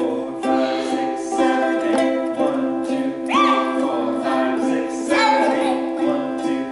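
An acoustic guitar and a ukulele strummed together in a steady rhythm, a chord about twice a second.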